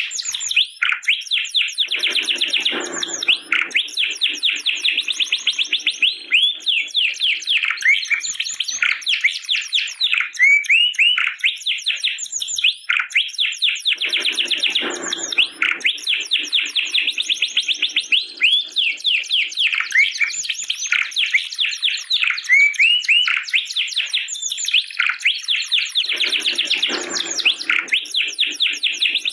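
Domestic canary singing a long, unbroken song of rapid trills and chirps. About every twelve seconds the song drops into a deeper, rolling passage.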